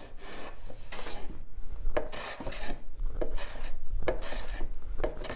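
Hand smoothing plane shaving walnut end grain in several short strokes. The cut drops out in the middle of the board, a sign the surface is not yet level there.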